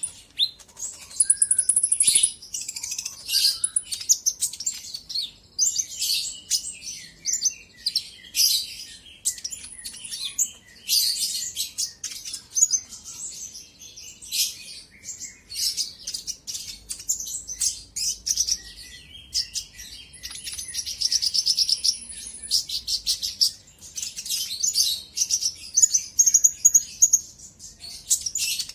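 A kolibri ninja sunbird singing busily: rapid high-pitched chirps and trills in quick phrases with short gaps, a few phrases held as thin buzzing trills. This is the lively 'gacor' song used as a trigger recording to provoke other birds of its kind.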